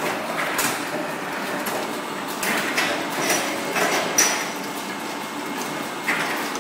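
Egg grading and packing machine running: a steady mechanical whir with irregular sharp clacks and clatter.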